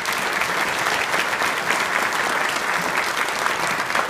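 Audience of banquet diners applauding, many hands clapping in a dense, steady patter.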